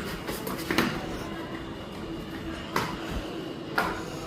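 Four sharp knocks of cricket play with bat and ball: one at the start, one just under a second in, then two more about a second apart near the end.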